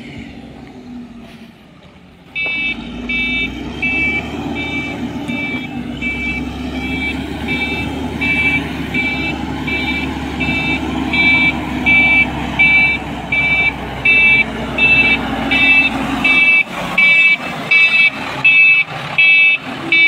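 A wheel loader's diesel engine running with its reversing alarm beeping steadily, a little more than once a second. The alarm starts about two seconds in and gets louder in the last few seconds as the machine comes close.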